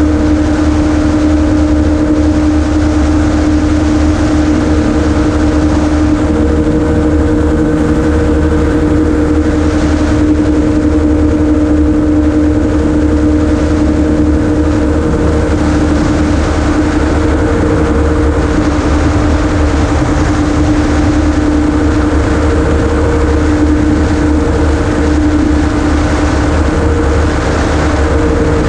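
Amphibious gyroplane's engine and propeller running steadily in level flight: a loud, even drone with a steady hum over a low rumble.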